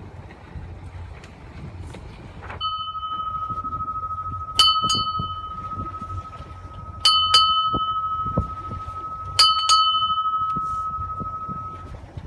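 A small brass hand bell rung for the Final Change of Watch in a burial at sea. It gives one clear ring about two and a half seconds in, then three pairs of strikes about two and a half seconds apart, each ringing on and slowly fading.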